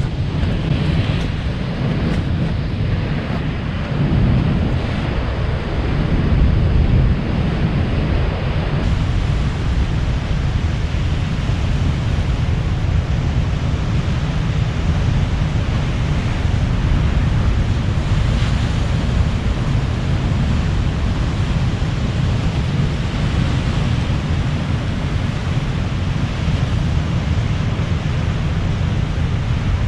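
Ocean surf washing against rocks, with wind buffeting the microphone in a steady low rumble.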